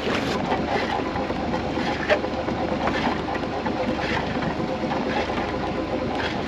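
Small fishing boat's engine running at idle, a steady hum, with one sharp knock about two seconds in.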